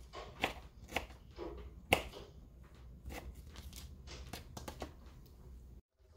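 Kitchen knife chopping a tomato on a thin plastic cutting board: a few sharp knocks in the first two seconds, the loudest about two seconds in, then lighter taps and scraping as the pieces are moved about.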